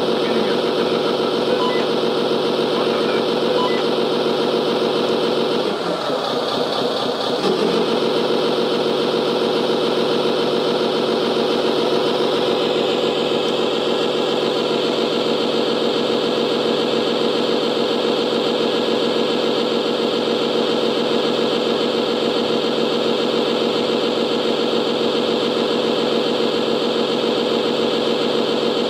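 Radio-controlled model airport fire truck's engine sound running steadily, dipping briefly about six seconds in. About twelve seconds in, a brighter hiss joins it as the truck's water pump and roof monitor start spraying.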